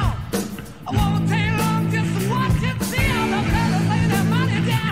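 Rock-style music track with a singing voice over held bass and guitar notes; the music dips briefly just after the start, then comes back in at full level.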